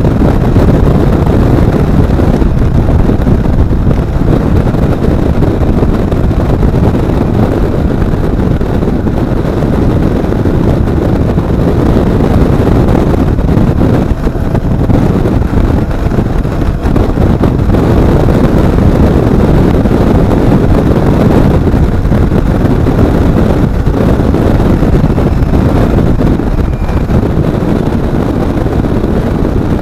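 Loud, steady wind rushing over a vehicle-mounted action camera's microphone while riding along, with engine and road noise mixed underneath.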